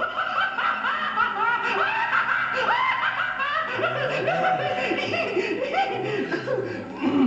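An audience laughing, many voices at once.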